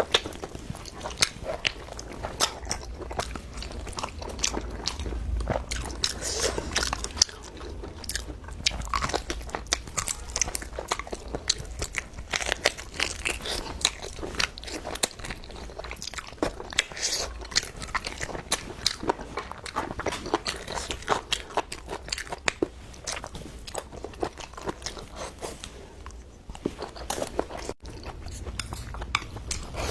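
Close-miked eating: a person biting and chewing food, with many short, crisp crunching clicks throughout.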